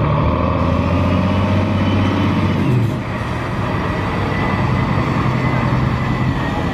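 A tow truck's engine running steadily.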